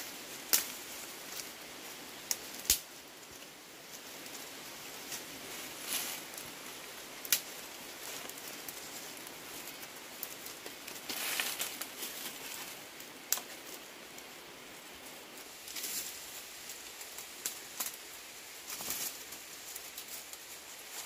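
Dry twigs and leaves rustling as a bundle of dry sticks is gathered and handled, with sharp snaps of brittle twigs now and then.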